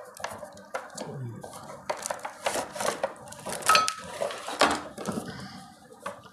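Cardboard box and clear plastic window packaging being handled and pulled apart to unbox a toy RC car: irregular rustling, crinkling and light knocks and clatter. Near the end the plastic car is set down on the table.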